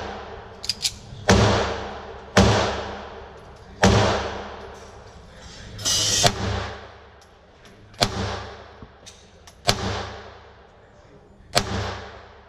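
Bersa Thunder 9 Ultra Compact Pro 9 mm pistol firing slow single shots, about seven in all, one every one to two seconds, each shot echoing and dying away under the range's roof.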